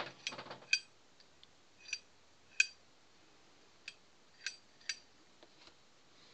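Irregular sharp metallic clicks with a short ring, about half a dozen over several seconds, as the small steel parts of a homemade jack's welded ratchet handle are handled and fitted together.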